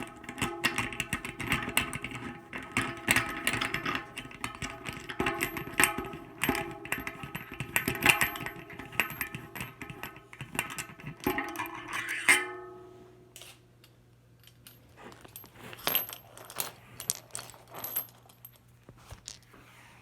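Metal parts of a homemade quick-release bearing press (sockets, skewer, nut and cap) jangling and clicking as the press is taken off the wheel: a busy ringing rattle for about twelve seconds that stops suddenly, then scattered light clicks as the parts are set down.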